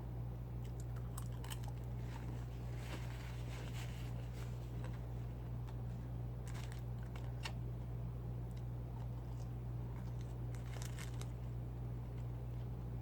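Someone eating fried fast food close to the microphone: scattered crunches and paper crinkling in short clusters, about a second in, around three to four seconds, near seven seconds and around eleven seconds. Under it all runs a steady low electrical hum.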